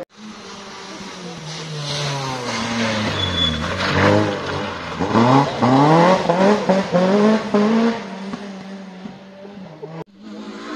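Rally car engine on a gravel-strewn tarmac stage: the engine note falls as the car slows for a corner, then climbs in a run of quick rising pulls, each dropping back at a gear change, as it accelerates hard away and fades.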